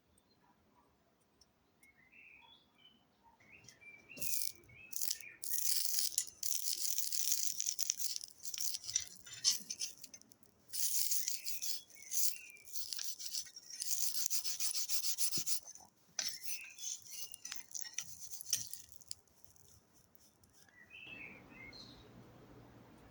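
Hissing, scraping strokes of an abrasive worked against a steel blade, coming in runs of one to a few seconds with short pauses between them. Birds chirp faintly at the start and near the end.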